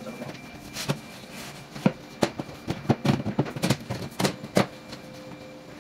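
Thin fibreboard back panel of an MDF dresser knocking and clattering against the cabinet frame as it is handled into place: a string of about a dozen irregular sharp knocks, the loudest near the middle and towards the end.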